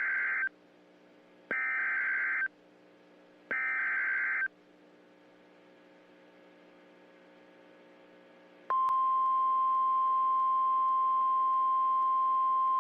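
Emergency Alert System SAME header: three bursts of warbling digital data tones, about a second each and two seconds apart, the first already under way. After several seconds of faint hiss, a steady single-pitch attention tone, the weather radio's 1050 Hz alarm, starts about nine seconds in and holds.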